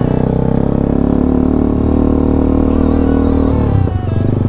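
Sport motorcycle engine running under way, its pitch climbing gently under throttle, then a brief dip about four seconds in.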